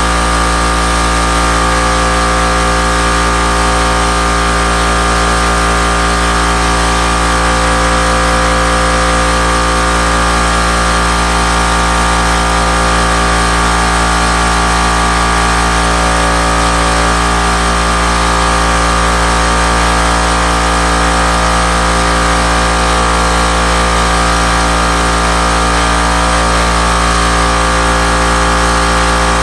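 Air compressor running steadily, a continuous mechanical hum with a fast even pulse underneath.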